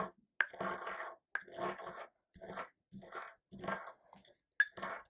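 Charred garlic cloves being ground into a fine powder: repeated short scraping, crunching strokes about one a second, with three sharp clicks.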